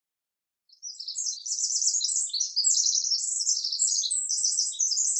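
High-pitched, rapid bird twittering and chirping, starting just under a second in and continuing without a break.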